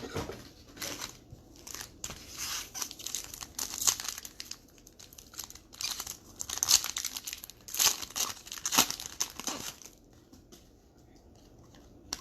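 Crinkling and tearing of plastic trading-card pack wrappers being opened and handled, in repeated rustling spells that die down near the end.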